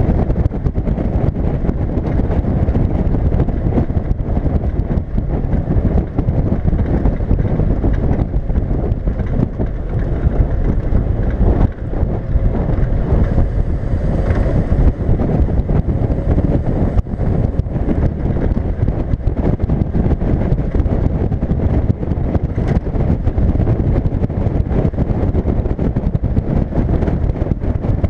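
1979 Land Rover Series 3 109" driving on a paved road at steady speed: a dense, even rumble of engine and road noise, mixed with wind buffeting the outside microphone.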